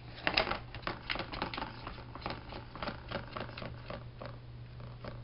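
Ball rolling and clattering around the plastic circular track of a Turbo Track cat toy as a cat bats it: a quick, irregular run of clicks and knocks, thickest in the first two seconds and thinning out after.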